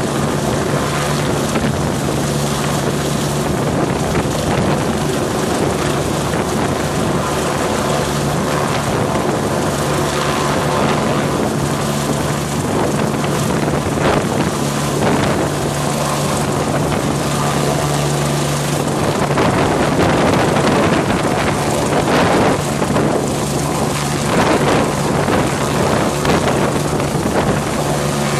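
Hovering helicopter's rotor and engine running steadily and loudly, with rotor downwash blowing across the microphone.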